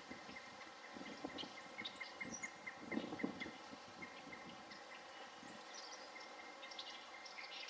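Faint outdoor ambience with small birds chirping in the background: a run of short chirps at about four a second for a couple of seconds, and scattered higher calls near the end. A few low bumps come about three seconds in.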